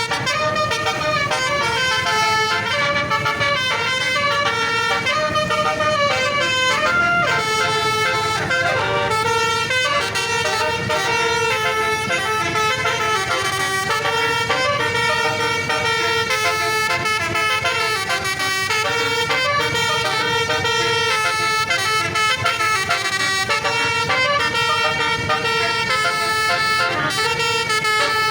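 Basuri telolet horn on an Indonesian tour bus playing a continuous melody, its notes stepping up and down without a pause.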